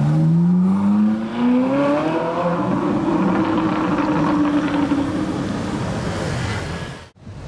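Ferrari 458's V8 accelerating away, its engine note rising steadily for about two and a half seconds, then holding and fading as the car pulls off. The sound breaks off abruptly near the end.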